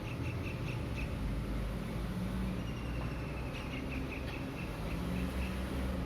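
A low, steady hum of distant city traffic, with a bird calling in quick runs of short, high chirps, once near the start and again from about halfway through.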